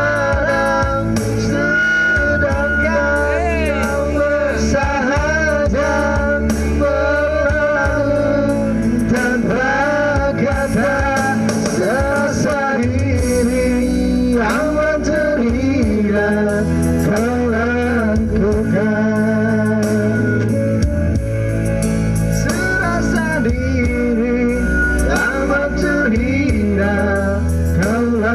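A song: a voice singing a wavering melody with vibrato over instrumental backing with guitar.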